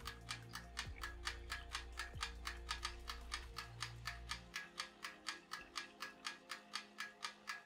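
Watch cleaning machine spinning its parts basket in a jar of cleaning fluid, with a steady clicking of about four clicks a second. A low motor hum under it drops away about halfway through.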